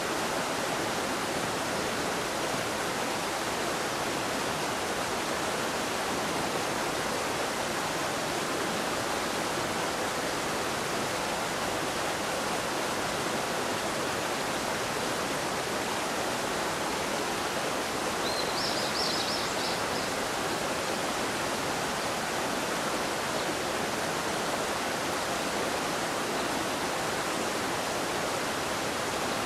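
Steady, even rushing noise of open-air ambience, with a brief high chirp a little past the middle.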